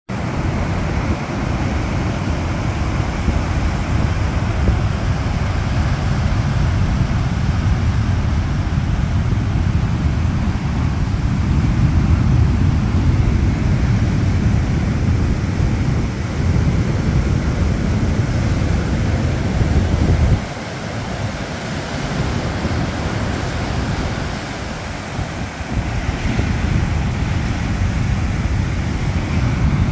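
Ocean surf breaking and washing over rocks, under wind buffeting the microphone in a heavy, uneven low rumble. The rumble eases for a few seconds about two-thirds of the way through.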